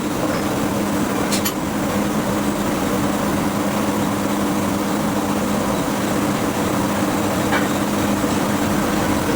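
Steady drone of forge-shop machinery: a low hum with two steady tones under a constant hiss, with a faint clink about a second and a half in and another near the end.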